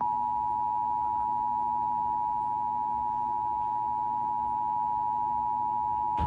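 Emergency Alert System attention signal: two steady high tones sounded together in one unbroken electronic drone, the standard warning that an emergency alert message, here an Amber Alert, is about to be broadcast. A brief click sounds about six seconds in.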